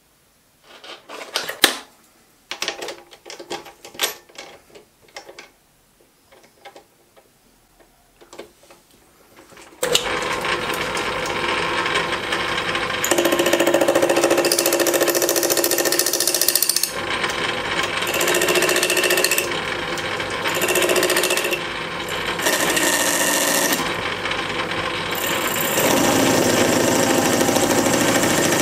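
Scattered clicks and knocks of metal parts being handled, then a metal-turning lathe starts about a third of the way in and runs steadily. A cutting tool takes metal off the spinning work in several stretches of a few seconds each, adding a hissing scrape over the motor.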